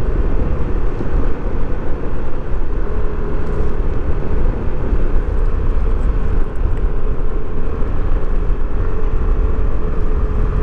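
Yamaha NMAX 155 scooter being ridden along a road: a steady engine hum under a constant low rumble of wind and road noise.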